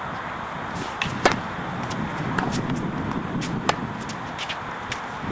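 Tennis ball struck by rackets during a rally: sharp pops, the loudest about a second in and another just before four seconds in, with a few fainter knocks of the ball between, over a steady background hiss.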